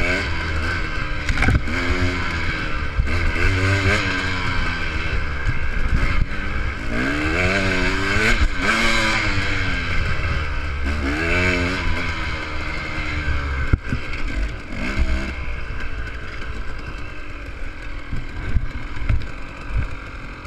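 Enduro dirt bike's engine heard from on the bike, revving up and down repeatedly as it is ridden along a rough trail, with clatter and sharp knocks from the bike over the uneven ground. Past the middle the engine falls back to a quieter run while the knocks go on.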